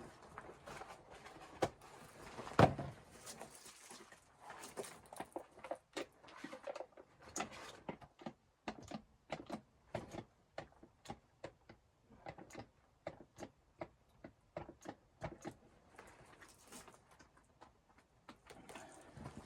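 A long run of irregular knocks and clicks, like objects being handled, with one louder knock about two and a half seconds in.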